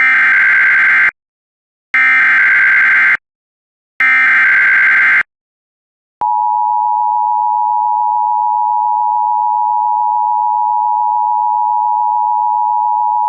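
NOAA Weather Radio alert signal: three bursts of about a second each of SAME digital header data, a buzzing two-tone data squeal, two seconds apart. About six seconds in, the steady single-pitch Warning Alarm Tone starts and holds, signalling that a warning broadcast, here a severe thunderstorm warning, is about to be read.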